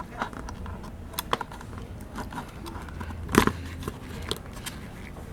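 Scattered small clicks and knocks of hands working the tubing onto an air-mattress compressor, with the loudest knock about three and a half seconds in, over a faint low hum.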